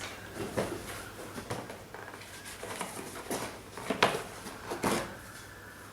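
Cardboard shoebox and its cut-out piece being handled: a few light knocks and taps with soft rustling between them.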